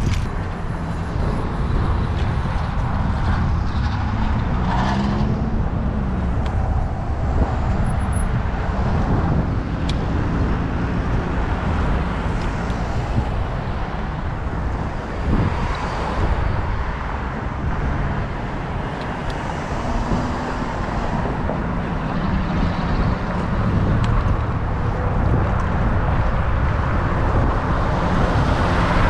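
A motor vehicle running steadily, a continuous low rumble of engine and road noise.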